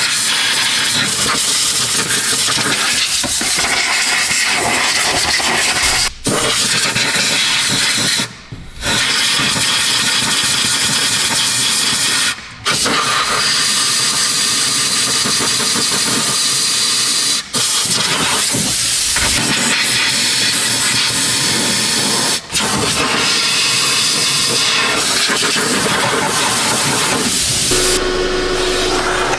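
Compressed-air blow gun blowing out the HVAC heater box of a mini excavator: a loud, steady hiss of air, broken by five short pauses as the trigger is let off.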